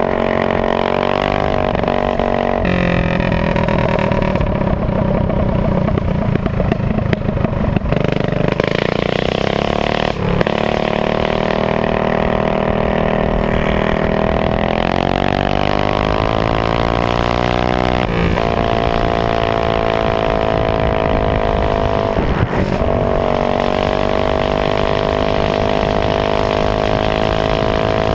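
Honda GX160 single-cylinder engine of a minibike running at high speed, heard close from on board. Its pitch dips a couple of times as the throttle eases, climbs over several seconds midway, then holds steady.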